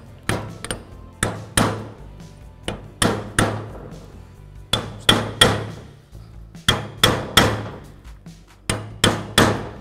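Hammer tapping a metal punch to drive a spring-backed seal down flush into a steering knuckle, working it around the rim. Sharp metallic taps come in quick groups of two or three, about every couple of seconds.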